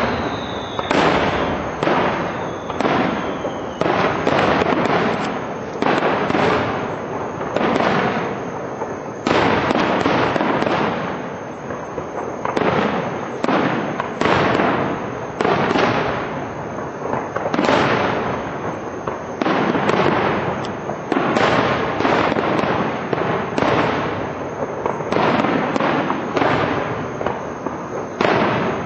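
Aerial firework shells bursting in quick succession, roughly one bang a second, each trailing off in echo. A falling whistle sounds right at the start.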